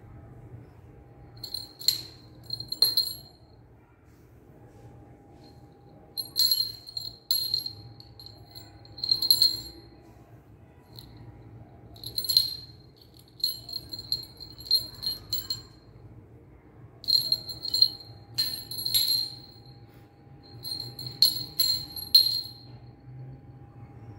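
Small metal jingle bell on a chain jingling in bright bursts as a kitten bats it about and a hand shakes it. There are about seven clusters of rapid ringing shakes, each a second or two long, with short pauses between them.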